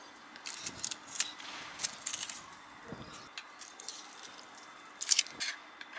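Long metal tweezers picking dead dry leaves out from among potted succulents: quick dry scratching and crackling clicks. They come in a cluster from about half a second in to two and a half seconds, and again in a short burst near the end.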